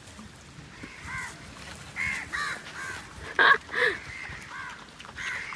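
Crows cawing, a string of short caws one after another, the two loudest a little past the middle.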